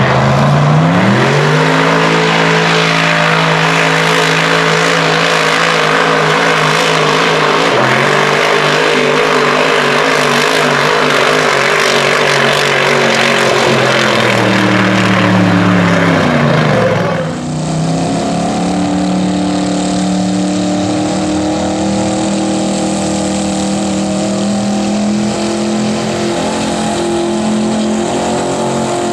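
Mud truck's engine at full throttle pulling a weighted sled: the revs climb over the first couple of seconds, hold high with a brief dip about eight seconds in, and fall away after about sixteen seconds. After that, another mud truck's engine runs at a steadier, lower pitch.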